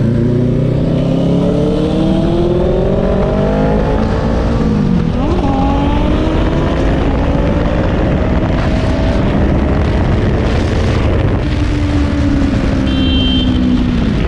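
Kawasaki Ninja's parallel-twin engine under way at speed, heard from the rider's seat: the engine note climbs steadily, drops at a gear change about five seconds in, then climbs again. Heavy wind rush on the microphone underneath.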